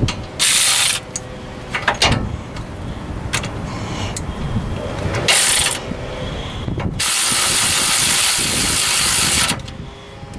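Ratchet wrench working a nut on the car's upper front suspension: bursts of rapid ratcheting, a short one near the start, another in the middle and a longer run of about two and a half seconds in the second half, with a few single clicks between.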